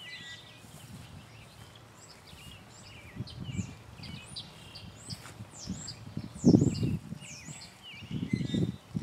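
Shovel blade chopping into soft wet ground around a clump of tall fescue: a few dull thuds, the loudest past the middle and a cluster near the end. Birds chirp throughout.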